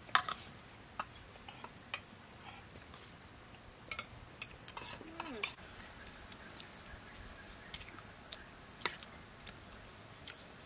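Metal spoons clinking and scraping against ceramic plates and a steel serving tray as food is scooped: scattered sharp clinks at irregular intervals, the loudest just after the start and again near the end.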